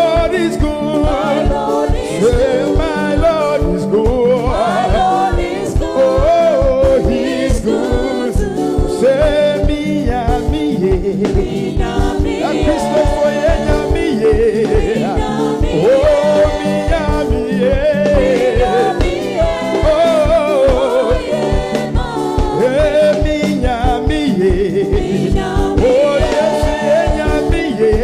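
Gospel praise music: sung melody over held chords and a steady, quick beat.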